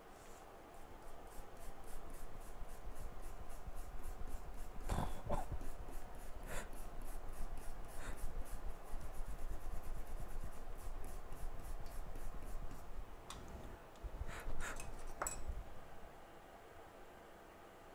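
A hand tool rubbing rapidly back and forth on an iPhone logic board, several even strokes a second, scrubbing or scraping it clean. The strokes stop about thirteen seconds in, and a few sharp clicks of tools being handled follow, with a couple more clicks about five seconds in.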